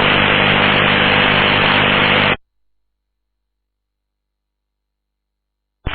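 Air-band VHF radio static: a loud steady hiss with a low hum from an open transmission carrying no voice. It cuts off suddenly about two and a half seconds in, leaving dead silence.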